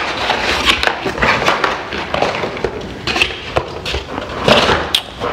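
Cardboard box and packing paper being handled and rummaged through: irregular scraping, crinkling and small knocks of cardboard.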